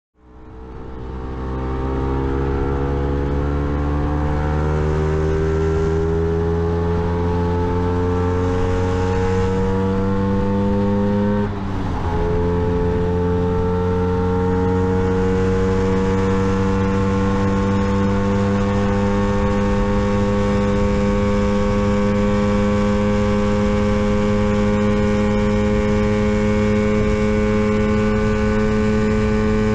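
Lambretta GP125 SIL scooter's single-cylinder two-stroke engine at full throttle, its pitch climbing as it accelerates. About twelve seconds in the pitch and level drop briefly as it shifts up a gear. It then pulls slowly higher in top gear and levels off near top speed.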